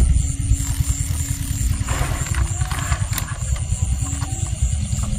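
Night insects chirping in a fast, even pulse over a steady low rumble. A brief rustle comes about two seconds in, and a sharp click a second later.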